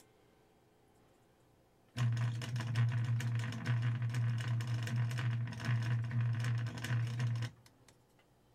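Fast, sustained drum roll on a drum kit: rapid even strokes with the drum's low ring held under them. It starts about two seconds in after a pause and stops abruptly about a second before the end.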